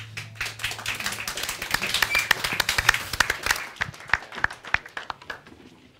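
Small studio audience applauding; the clapping thins out and dies away over the last second or so.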